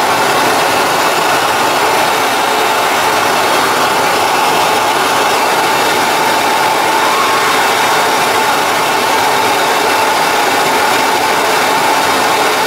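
Gas torch flame burning steadily and loudly as it heats a steel punch back up to cherry red to re-harden it.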